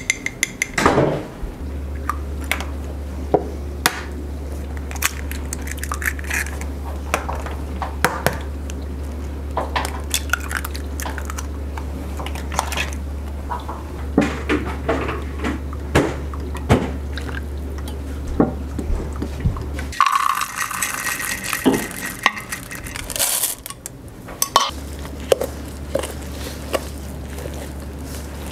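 Baking prep in a stainless steel mixing bowl: a spoon and measuring cup clinking and knocking against the bowl, oil being poured, and thick muffin batter being stirred, with many sharp clinks throughout. A steady low hum runs under most of it, dropping out for a few seconds about two-thirds of the way through.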